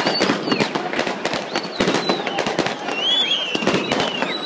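Fireworks going off in a rapid crackling string of sharp bangs, with high whistling tones rising and falling over them.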